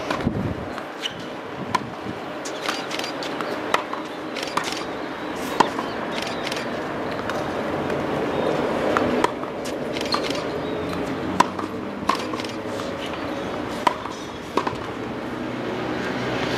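Tennis rally: sharp pops of the ball struck by racquets and bouncing on the court, roughly one every second or so, over steady background noise.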